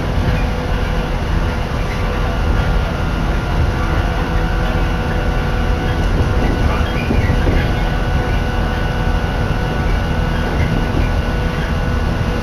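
Steady running noise inside a moving Shinano Railway electric train carriage: a continuous low rumble of wheels on rails, with a few faint steady tones above it.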